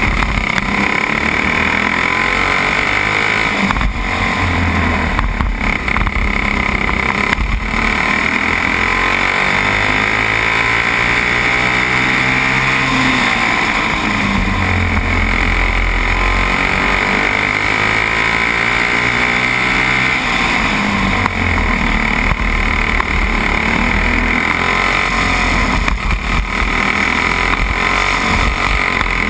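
Racing go-kart engine heard from on board at full race pace, its pitch climbing on the straights and dropping back into the corners over and over.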